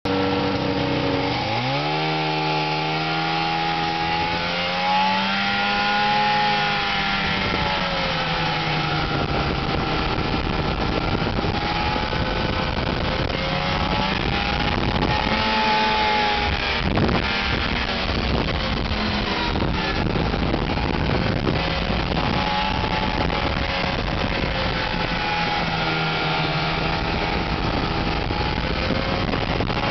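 1998 Ski-Doo MXZ 500 snowmobile's two-stroke twin engine accelerating hard about a second in, then running at speed, its pitch rising and falling with the throttle over a steady rushing noise. A single sharp knock about halfway through.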